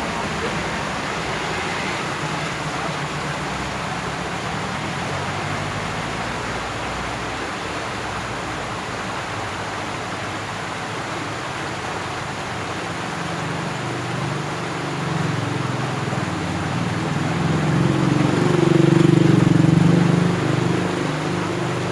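A motor vehicle engine passes, building from about two-thirds of the way in, loudest near the end and then fading, over a steady rushing background noise.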